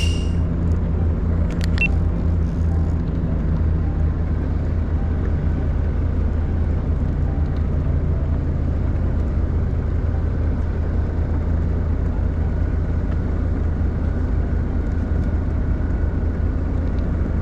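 Fishing boat's engine running steadily with a low, even hum, and a couple of short clicks in the first two seconds.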